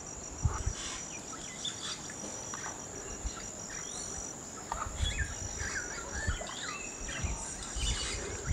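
Amazon rainforest birds calling in short chirps and whistles over a steady, high-pitched insect drone, with a few low thumps on the microphone.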